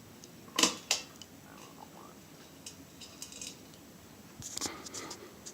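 Two sharp clicks close together about half a second in, followed by scattered faint ticks and a small cluster of clicks near the end.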